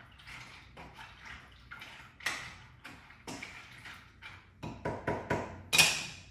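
Water splashing and pouring in uneven gushes, growing louder towards the end, with the loudest gush just before it cuts off suddenly.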